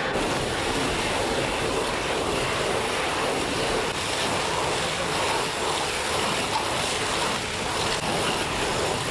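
Several people scrubbing a sanded wooden ship's deck with bricks, pushed back and forth by hand, making a steady scraping noise.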